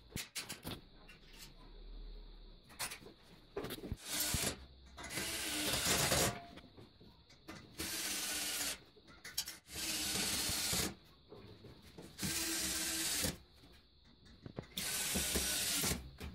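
Electric drill run in about six bursts of one to two seconds each, its bit held against a steel ceiling-frame channel fixed to the ceiling.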